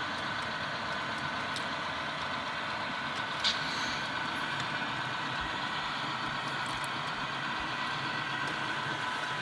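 Sound-equipped model diesel locomotive playing a steady diesel engine sound through its onboard speaker as it runs along the track. A faint click about three and a half seconds in.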